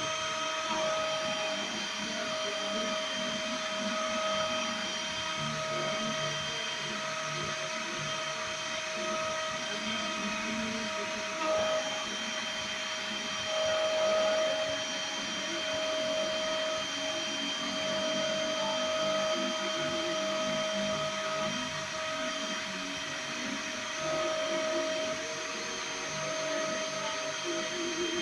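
Spindle of a small CNC mill running steadily with a high whine while milling a printed circuit board. The whine wavers and briefly grows louder twice near the middle as the cutter works.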